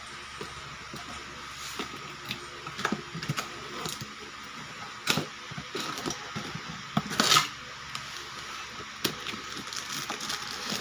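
Toy packaging being opened and handled by hand: scattered clicks and crackles, with a louder crinkle about five seconds in and another, longer one around seven seconds.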